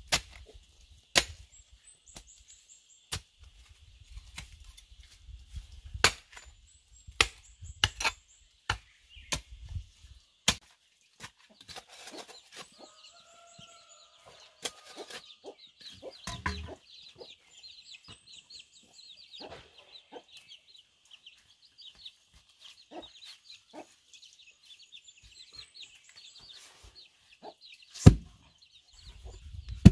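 Sharp chops of a digging blade and a shovel biting into packed earth, about one every second or two for the first ten seconds, then softer scrapes and knocks of soil being shovelled. Chickens cluck in the background, and a loud heavy thud comes near the end as a hollow log section is set down in the hole.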